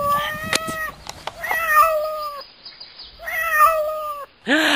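Animal whining: three drawn-out, high cries of about a second each with short pauses between them, then a louder cry falling in pitch near the end.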